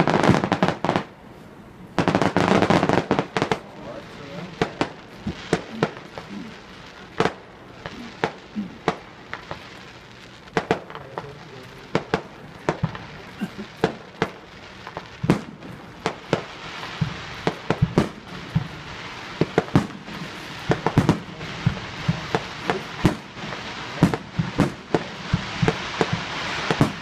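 Aerial fireworks display: many sharp bangs from shells bursting, with dense crackling in the first few seconds, then scattered bangs a few each second, growing denser toward the end.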